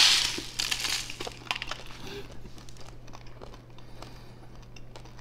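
Bite and chewing crunches of buttered toast topped with sprinkles: a loud crackling crunch right at the start, then short crackly chews that thin out and grow faint after about a second and a half.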